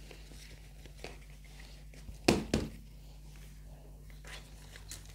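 Faint handling noise of hands working potting soil in plastic plant pots, small rustles and clicks, with two sharp knocks about a quarter second apart a little over two seconds in.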